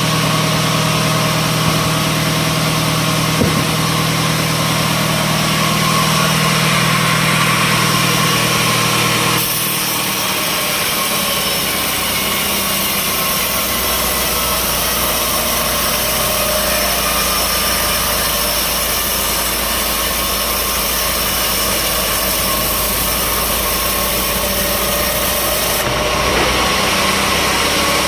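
Sawmill machinery running steadily with an engine-like drone. The tone of the machinery changes abruptly about a third of the way in and again near the end.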